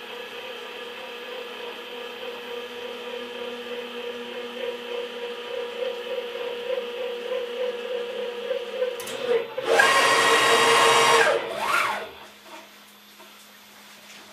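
CNC router's stepper motors driving the gantry axes during homing: a steady whine with a pulsing tone that slowly grows louder. About ten seconds in comes a much louder, faster move for about a second and a half, then a brief one whose pitch rises and falls, before it drops to a low hum.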